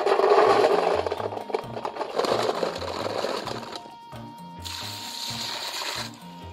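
Handfuls of small, hard, round barometer earthstar mushrooms poured into an aluminium basin, a dense rattling clatter that is loudest in the first second and fades out about four seconds in. A shorter steady hiss follows about four and a half seconds in.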